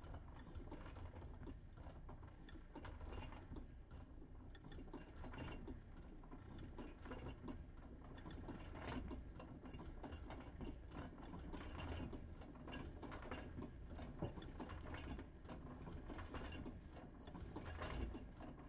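Brother Boutique 751 sewing machine running steadily while stitching a zigzag seam: a fast, even rattle of the needle and feed mechanism over a low motor hum.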